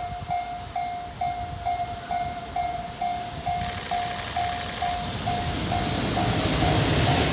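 JR Freight EF510 electric locomotive hauling a container freight train, its running noise rising as it approaches and passes close by, loudest near the end. Throughout, a level-crossing alarm rings a steady repeating tone about twice a second.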